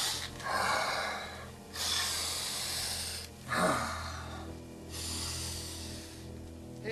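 A man's heavy breathing: several long, noisy breaths, over a low steady drone.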